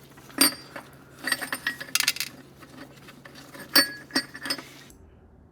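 Small loose steel transmission parts clinking and ringing as they are handled and set down: a few light metallic strikes about half a second in, around two seconds and near four seconds. A faint steady low hum runs underneath and stops just before the end.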